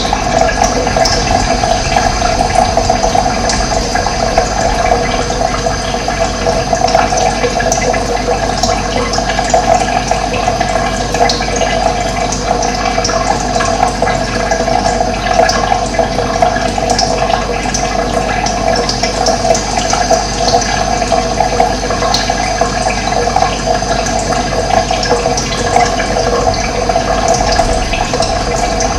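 Running water rushing and splashing steadily, an even, unbroken flow.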